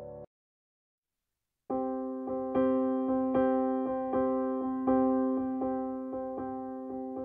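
Background piano music. One track cuts off just after the start, there is about a second and a half of silence, then a new piano piece begins with notes struck at a steady, gentle pace.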